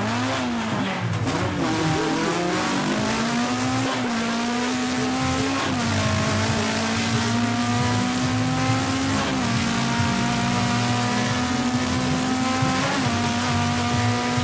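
Race car engine accelerating hard through the gears: its pitch climbs steadily and drops sharply at each of about four upshifts, after a wavering screech in the first couple of seconds like tyres squealing.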